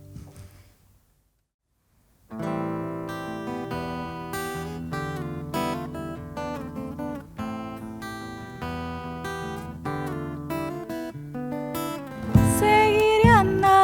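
Acoustic guitar playing picked notes in an instrumental passage of a song, starting after a second or so of silence; near the end the music grows much louder and fuller.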